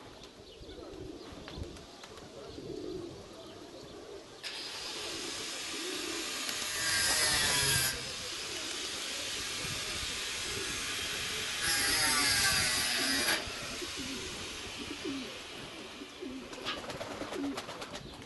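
Domestic pigeons cooing, soft low coos repeating throughout. From about four seconds in a steady hiss joins them, swells louder twice, and stops a couple of seconds before the end.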